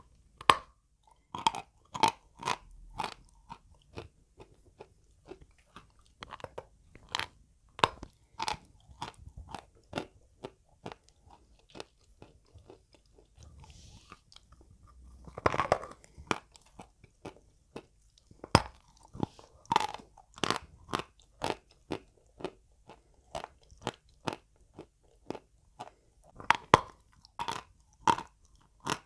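Close-miked dry crunching of hard white chalk being bitten off a lump and chewed: a quick run of sharp snaps, with a longer crumbling crunch about halfway through.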